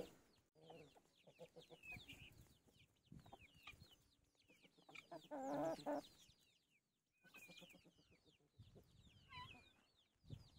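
Chickens clucking faintly, with one louder, drawn-out cluck about five seconds in, over scattered high chirps.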